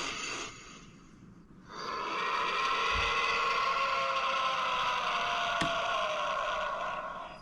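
Electronic sound effect played through the small speaker of the Ultra Replica Orb Ring transformation toy. From about two seconds in, a steady, shimmering layered tone holds with a slowly falling pitch under it, then fades near the end. A single sharp click sounds partway through.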